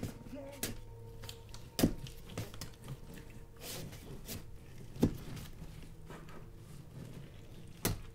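A few scattered sharp knocks or thuds, the loudest about two, five and eight seconds in, over a faint steady hum.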